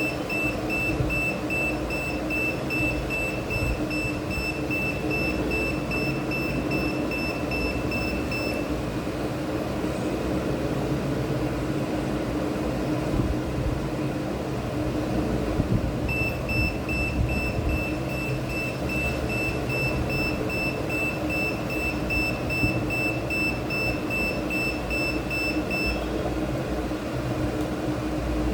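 Electronic alarm of an ESP32 emergency alarm device beeping in a fast, even string of short high-pitched beeps: it sounds until about a third of the way in, falls silent, then starts again and stops a couple of seconds before the end.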